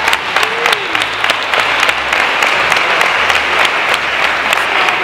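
Applause from a group of people, many hands clapping steadily.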